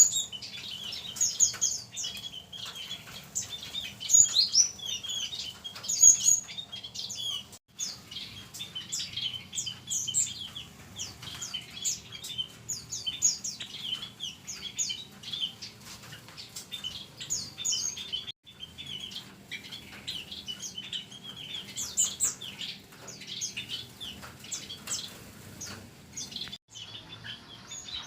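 A mixed aviary of small songbirds chirping and twittering together, many short, high, overlapping calls and trills with no pause.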